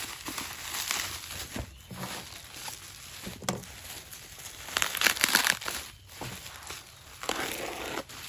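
Packaging being handled and unwrapped: irregular crinkling and rustling, loudest about five seconds in.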